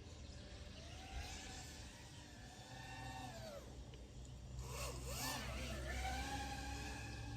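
FPV racing quadcopter's brushless motors and propellers whining in flight, the pitch rising and falling with the throttle: a climb about a second in, a drop about three and a half seconds in, then a quick dip and sharp climb near five seconds before holding high.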